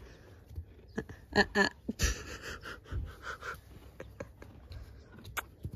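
Horse snuffling and breathing at close range, short noisy puffs, with scattered light knocks and rustles.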